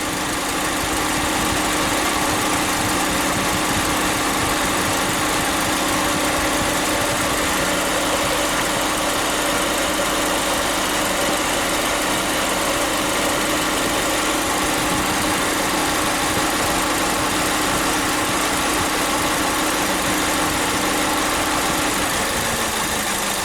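Chevrolet Spin engine idling steadily with the electric radiator cooling fan running, a steady whooshing hum. The canister purge solenoid is unplugged, so its light tapping, which sounds like something loose rattling, is absent. Near the end the hum drops in pitch.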